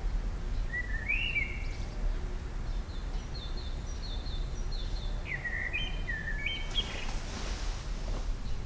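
Songbirds chirping in several short, bright phrases over a steady low background rumble, with a rustle near the end.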